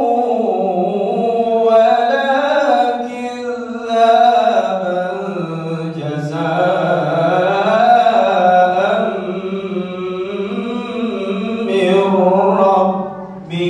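A man reciting the Qur'an in melodic tilawah style, amplified through a microphone, drawing out long wavering, ornamented phrases broken by short pauses for breath.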